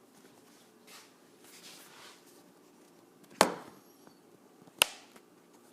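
Two sharp knocks of something hard striking a hard surface, about a second and a half apart; the first is louder and rings briefly. A faint steady hum runs underneath.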